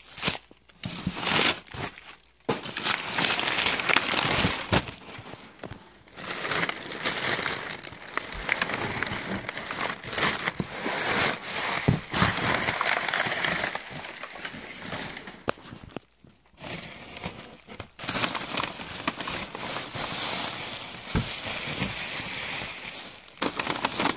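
Plastic bags and bubble wrap crinkling and rustling as packing material is handled and pulled out of a box. The rustling is irregular and broken by a few short pauses, one about two seconds in and another about two-thirds of the way through.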